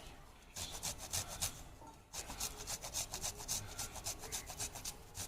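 Fresh ginger being grated by hand: quick, regular rasping strokes, several a second, with a short pause about two seconds in.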